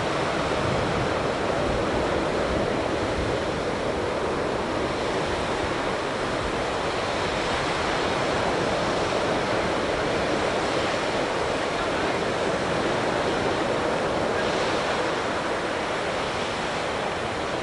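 Surf breaking on a sandy beach, a steady wash of noise, with wind buffeting the microphone.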